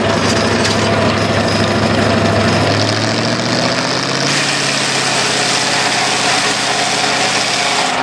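Homemade circular sawmill running: its power engine turns the large saw blade at a steady speed. The engine note rises slightly about three seconds in, and a harsher, higher hiss joins about a second later.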